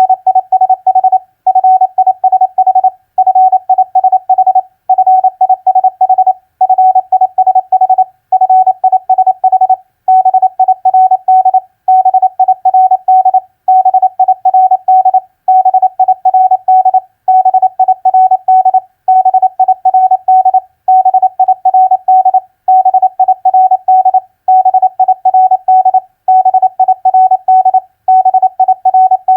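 Morse code sent at 28 words per minute as a single steady-pitched beep keyed on and off in rapid dots and dashes. Common four-letter practice words are each played twice, with a brief pause between words about every second and a half to two seconds.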